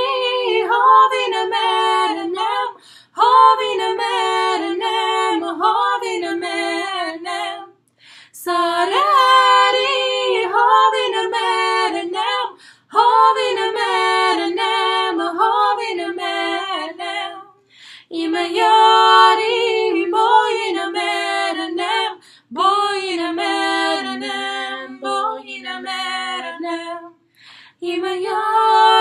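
Two women singing an Armenian song a cappella in two-part harmony, in phrases of about four to five seconds broken by short pauses for breath. Near the end, one voice holds a low note while the other moves above it.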